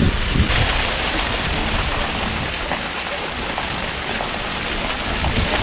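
Waterfall, water falling and splashing in a steady, loud rush, with wind buffeting the microphone briefly at the start.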